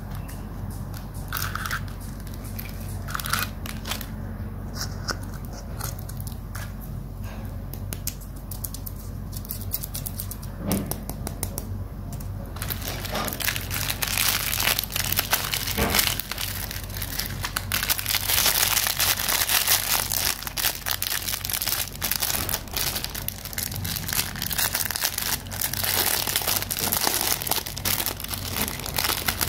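Clear plastic wrapping and cellophane crinkling as a surprise-egg toy is unwrapped by hand. There are light scattered rustles and clicks at first, then dense, continuous crinkling from a little under halfway through, over a low steady hum.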